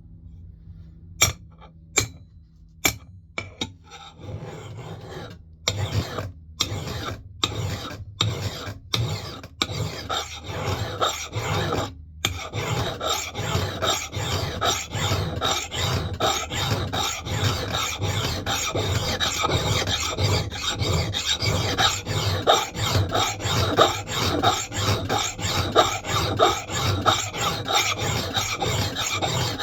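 A hand file stroking across the steel bit of a Mann Edge Tool Company knot clipper axe, sharpening the edge. A few sharp clicks come first, then separate file strokes that settle into a steady rhythm of about two strokes a second.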